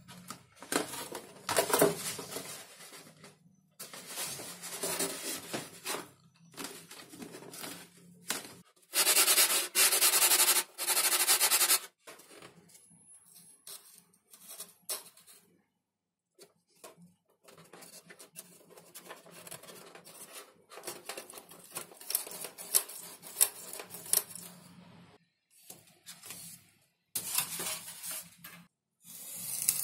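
XPS foam model-plane parts being handled and rubbed together by hand: stop-start rubbing and creaking of foam with short silent pauses, and a louder steady scraping stretch of about three seconds near the middle.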